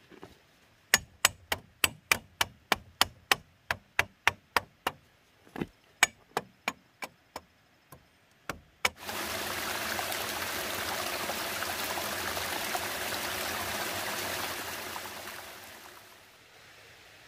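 A quick run of about two dozen sharp clicks, roughly three a second, for some seven seconds, then a loud, steady rushing noise like running water that fades out near the end.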